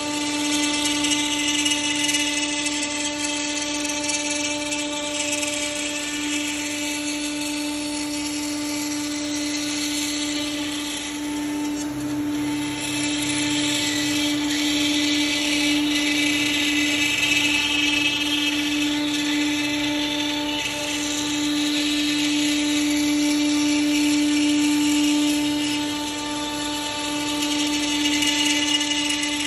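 CNC router spindle running steadily at a high pitch as its bit cuts wood, the cutting noise swelling and easing as the tool moves along its path.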